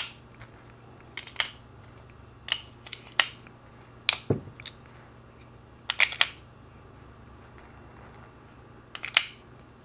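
Sharp clicks and clinks, one every second or so with some in quick pairs, as .45 ACP cartridges are dropped one by one into the plastic tube of a BMT Mooner moon-clip loader.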